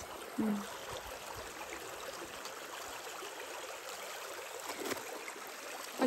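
Waterfall-fed stream flowing steadily, an even rush of running water, with a short voice sound about half a second in.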